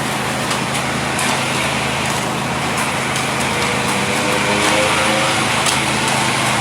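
Engine of road-repair machinery running steadily: an even low drone with faint ticks.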